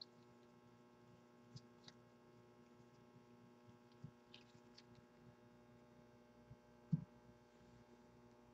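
Near silence over a steady electrical hum, with a few faint clicks of trading cards being flipped through by hand and a single soft thump just before seven seconds in.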